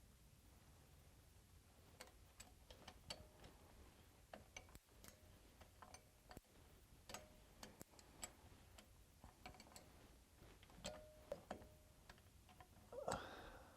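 Faint, irregular clicks and light metallic taps of hand tools working on a Land Rover 90's prop shaft fastenings, a few with a brief ring. A louder metallic clatter near the end is the loudest sound.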